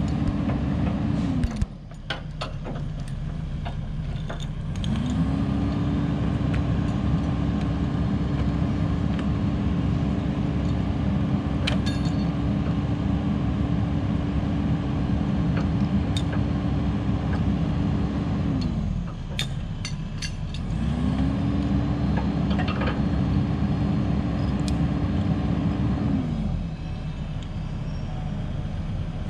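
Excavator's diesel engine running near the truck, alternating between high revs and idle: it drops to idle shortly after the start, revs back up about five seconds in, drops again near the twenty-second mark, briefly revs up once more, then settles back to idle near the end. A few light metallic clinks sound now and then.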